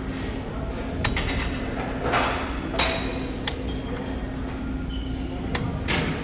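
Weight-stack plates of a glute kickback machine knocking and clinking irregularly as a leg pushes the lever through reps, with a steady low hum underneath.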